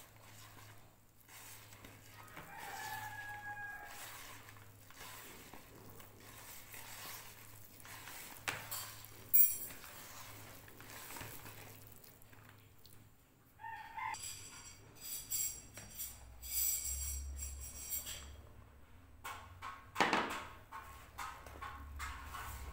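Hands rubbing and squeezing crumbly flour-and-fat dough in a plastic bowl, a soft rustling throughout. Animal calls sound in the background a few times, the longest about two-thirds of the way through. Two sharp knocks, one about halfway and one near the end.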